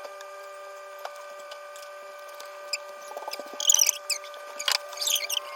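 Bacon crackling and popping in a frying pan over a steady hum. The pops are sparse at first and come in quick irregular clusters in the second half.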